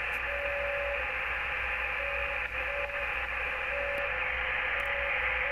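Shortwave receiver audio on the 30 m amateur band: a steady hiss with a faint low hum, and a weak tone near 550 Hz keying on and off every second or so at slightly shifting pitch, the sound of slow-speed QRSS beacon signals.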